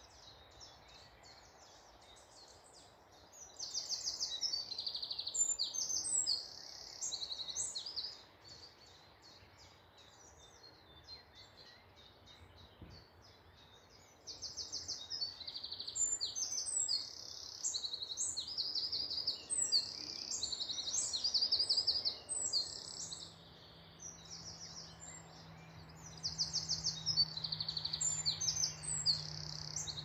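Woodland songbirds singing: phrases of rapid, high-pitched trills lasting a few seconds each, separated by pauses. A faint low steady hum comes in after about three quarters of the way through.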